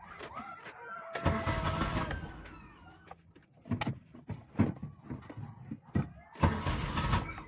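Nissan Sentra engine cranked by its starter in two short bursts, about a second in and near the end, with a few sharp clicks between. The engine does not catch: a crank-no-start.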